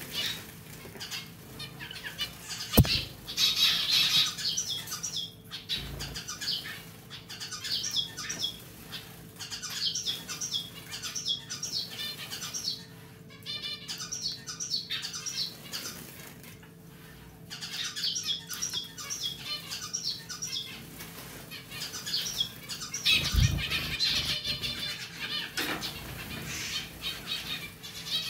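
Zebra finch bathing in shallow water: repeated bursts of rapid wing-fluttering and splashing with short pauses between them. There is a sharp knock about three seconds in, and the pet water fountain's pump hums steadily underneath.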